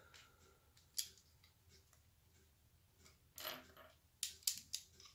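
Plastic LEGO bricks and plates clicking as they are pressed together by hand: a sharp click about a second in, a brief scraping rustle past the three-second mark, then a quick run of clicks near the end.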